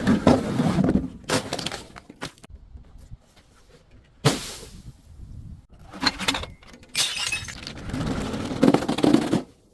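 Glass bottles breaking: a series of sudden shattering crashes, then a longer stretch of glass crunching near the end.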